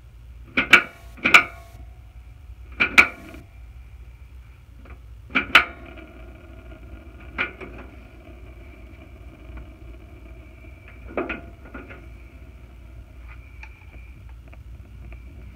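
Mr. Heater Portable Buddy propane heater's piezo igniter clicking sharply several times as the control knob is pushed and turned to light the pilot, most of the clicks in the first six seconds. A faint steady hiss of gas burning follows as the pilot catches.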